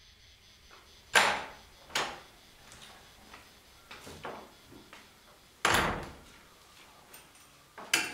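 A series of sharp knocks and clunks at irregular intervals, each with a short ringing decay; the loudest come about a second in and a little before six seconds in.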